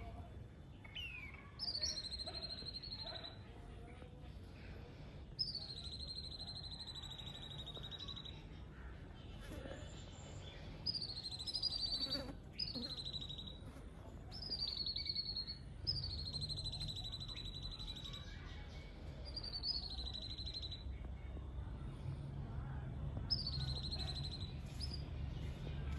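A small songbird singing from a treetop: a repeated high call, each one a quick downward slide into a held note of about a second, given about ten times with gaps of one to four seconds.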